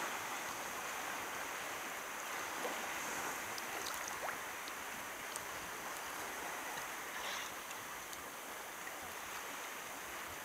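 Small waves lapping and washing against a sea kayak's hull, a steady wash of water with a few light ticks.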